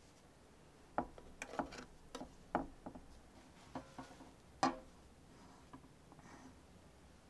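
A scattered run of light taps and knocks, the loudest about four and a half seconds in, as a baked milk-bread loaf is handled and set down on a metal wire cooling rack on a wooden board.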